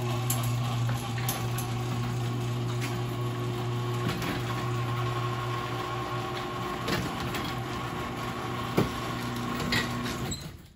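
LiftMaster 3255 chain-drive garage door opener raising a sectional door: a loud, obnoxious steady motor hum with scattered clicks and rattles from the chain and door rollers. It cuts off shortly before the end as the door reaches the top.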